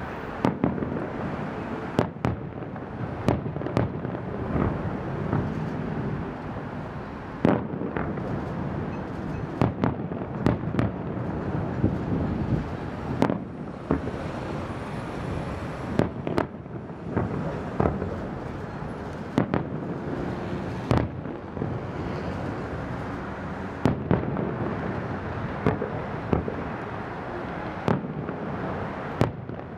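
Aerial fireworks display: shells bursting in sharp bangs at irregular intervals, often several within a second, over a continuous rumble and crackle from the show.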